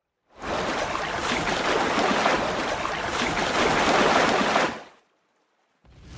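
Rushing, splashing water sound effect that builds slightly and fades out about four and a half seconds in.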